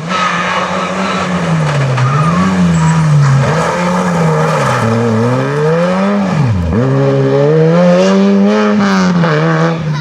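Peugeot 106 rally car's four-cylinder engine driven hard, the revs climbing and falling over and over through gear changes and lifts. About six and a half seconds in the revs drop sharply as it brakes for a tight bend, then climb again as it pulls away.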